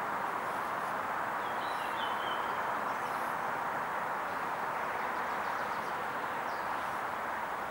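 Steady outdoor background hiss, with a bird chirping briefly about two seconds in.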